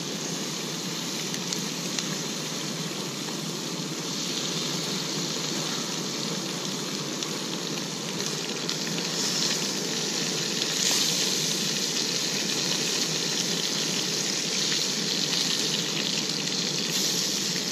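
Trout fillets sizzling in butter in a nonstick frying pan over a camp stove: a steady frying hiss, a little louder from about eleven seconds in.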